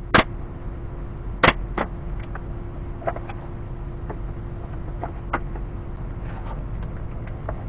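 A few sharp knocks and clicks of wooden parts being handled, the loudest near the start and about a second and a half in, with weaker ones scattered after. A steady faint hum runs underneath.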